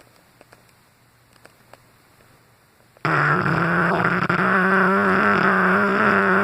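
Cane Corso snoring in its sleep: after a few quiet seconds, one long, loud snore starts suddenly about halfway through and holds a steady buzzing pitch for about three seconds before it cuts off.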